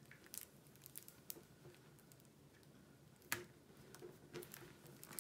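Faint handling sounds of fingers pressing a flexible tape measure flat on a canvas's plastic cover: soft scattered taps and rustles, with one sharper click about three seconds in.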